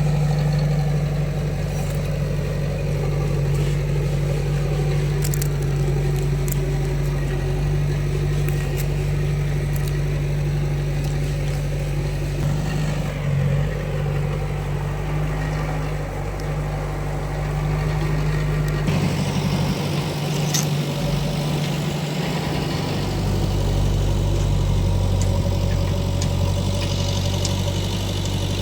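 Heavy diesel engine running steadily, its low note changing about two-thirds of the way through.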